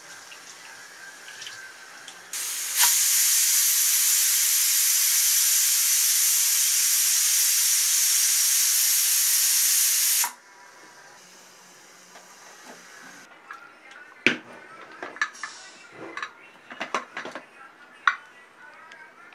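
Pressure cooker whistling: the weighted valve on the aluminium lid vents steam in one loud, steady hiss lasting about seven seconds, which starts about three seconds in and cuts off suddenly. It is the sign that the cooker is up to pressure. Later come a scatter of sharp metal clicks and knocks.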